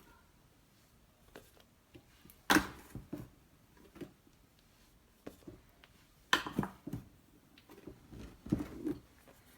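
Measuring cup and utensils knocking and clattering against a mixing bowl while flour is added to a bread dough mix, in three brief clusters of sharp knocks.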